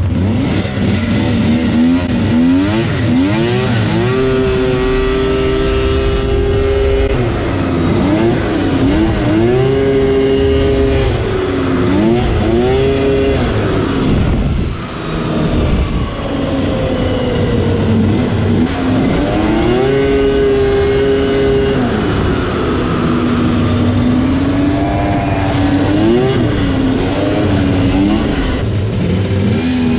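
Snowmobile engine running hard down a trail: the revs climb and hold high, ease off and pick up again several times, with a brief let-off about halfway through.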